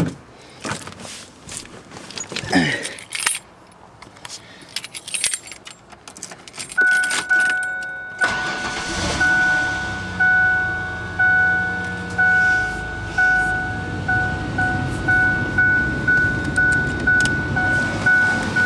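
Keys jangling and rattling, then the Ford Explorer's warning chime starts dinging repeatedly and the engine is started about eight seconds in and settles into idle, the chime still going over it.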